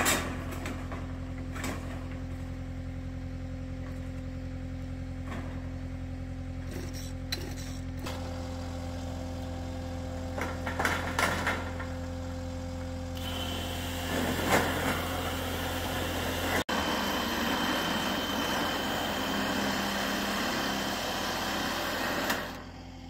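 Compact track loader's diesel engine running steadily, with a few clanks of sheet metal being handled. From about 13 seconds a cordless saw cuts along a corrugated steel roofing panel, a harsh steady whine with a high tone, stopping shortly before the end.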